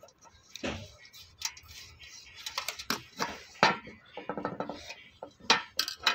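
Scattered clicks, clinks and knocks of plastic switch and socket pieces, wires and metal hand tools being handled and set down on a hard floor.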